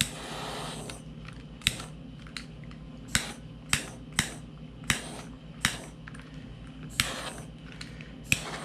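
Sharp clicks and taps of small hard objects being handled and set down on a workbench, about nine spread irregularly over several seconds, over a low steady hum.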